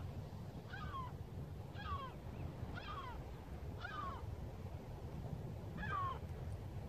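An animal calling: short cries falling in pitch, five of them about a second apart with a longer gap before the last, over a low wind rumble.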